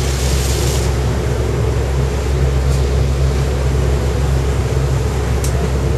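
Boat engine running with a steady low drone, heard on deck, under a constant rush of wind and water.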